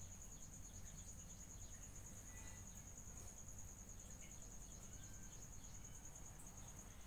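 Faint, steady, high-pitched trill of a cricket, over a low background hum.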